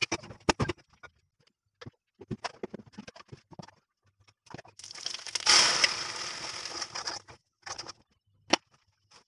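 Metal utensil clicks and knocks on an iron kadhai over a gas burner. About five seconds in comes a two-second burst of sizzling as food goes into the hot pan, followed by a few sharp spatula knocks near the end.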